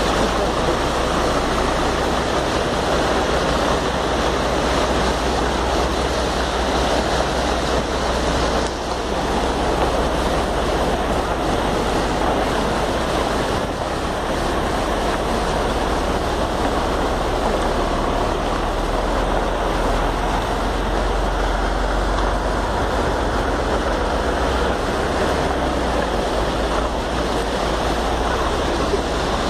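Steady rush of a fast mountain river over rapids, with a Volvo truck's diesel engine running low and even underneath.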